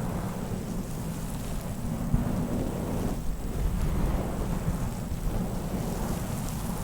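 ASMR 'waves' trigger: slow, swishing swells of rumbling noise close to the microphone, two swells with a short dip about three seconds in.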